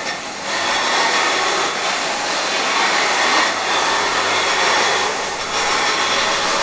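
A loud, steady rushing noise with no pitch to it, setting in just after the start and fading away near the end.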